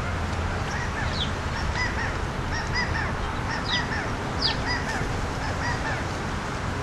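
California quail giving soft contact calls while feeding: a run of short, clucking notes, often in pairs, with a few sharp downslurred notes among them, over a steady low hum.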